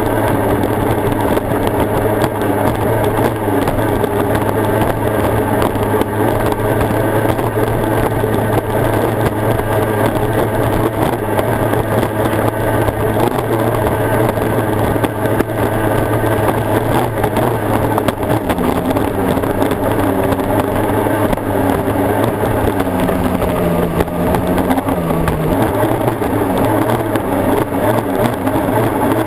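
Racing outboard engine of an OSY-400 class raceboat running hard and steady, heard from on board the boat. About two-thirds of the way through its pitch wavers, dips and then comes back up.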